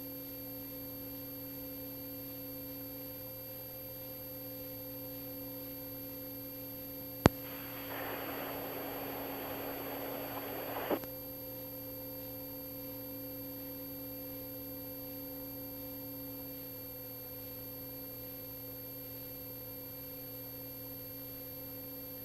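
Steady electrical hum made of several constant tones, as in an aircraft intercom or radio audio feed. About seven seconds in there is a sharp click, then about three seconds of radio static hiss that ends with another click.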